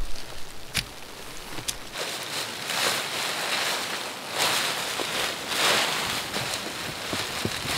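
Heavy tent fabric rustling and flapping in repeated swells as it is unrolled and shaken out on the snow, after two sharp clicks in the first two seconds.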